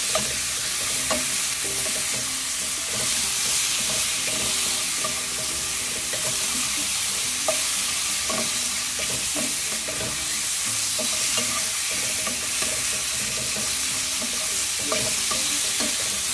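White mushrooms and minced garlic sizzling in butter and olive oil in a pan on high heat. A utensil scrapes and taps the pan now and then as they are stirred.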